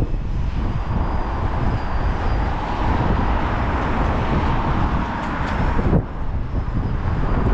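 Strong gusting wind buffeting the microphone: a heavy low rumble with a steady roar above it, dipping briefly about six seconds in.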